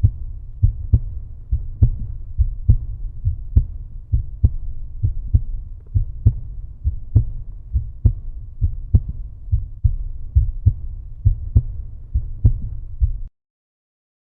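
Outro music: a deep, bass-heavy beat of thumps about twice a second that cuts off suddenly near the end.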